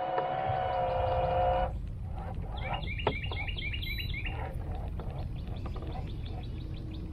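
A steady held tone for about a second and a half, then a bird singing a quick run of about seven short chirps, with scattered fainter chirps afterwards over a low steady rumble.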